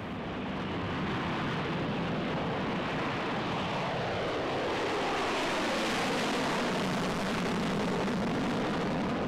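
Jet noise of a B-1B Lancer bomber taking off and climbing away overhead on its four afterburning turbofans. It is a dense, steady rush that builds over the first second, with a slow sweep in pitch as the aircraft passes overhead.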